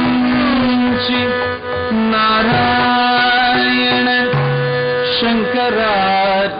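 Carnatic music for a classical Indian dance: a melody held on long notes that slide from one pitch to the next, over a steady drone, with occasional hand-drum strokes.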